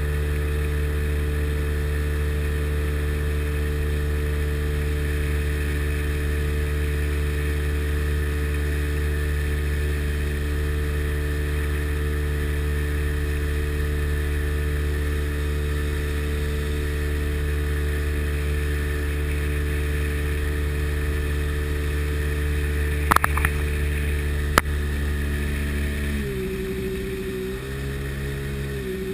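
Sea Ray Sea Rayder jet boat's two-stroke engine running steadily under way, then throttled back about three-quarters of the way through, its pitch dropping and wavering. Two brief knocks a little before the throttle change.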